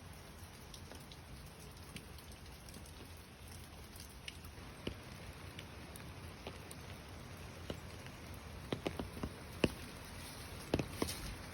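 Rain falling steadily, with scattered sharp drip taps that come more often and louder in the second half.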